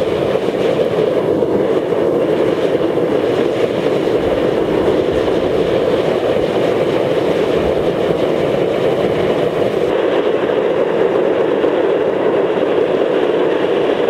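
Home-made waste-oil burner firing into a dirt-lined drum furnace: a loud, steady rushing of flame and air. It has just been lit with starting fluid and is still coming up to heat.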